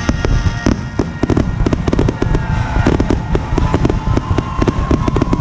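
Aerial fireworks going off in rapid succession: a dense run of loud bangs and crackles close together, with a whistling tone from about the middle onward.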